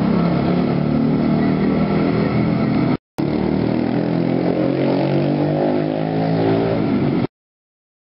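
A motor vehicle engine running steadily, its pitch drifting slowly. A brief drop-out about three seconds in, and the sound cuts off abruptly near the end.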